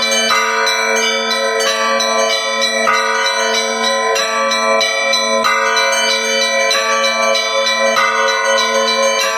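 Russian Orthodox church bells rung together in a festive Easter peal. Higher bells are struck in a pattern that repeats about every second and a quarter, over the steady hum of the larger bells.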